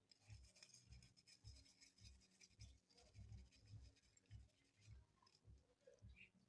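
Faint, quick scrubbing strokes, two to three a second, as the circuit board of a water-damaged keypad phone is cleaned with petrol.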